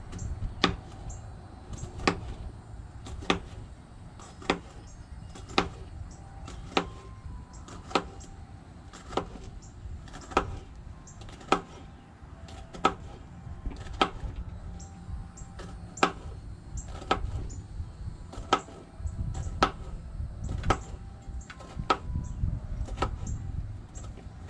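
Knife slicing bitter melon on a plastic cutting board: a sharp knock about once a second as the blade meets the board. A low rumble runs underneath and grows louder near the end.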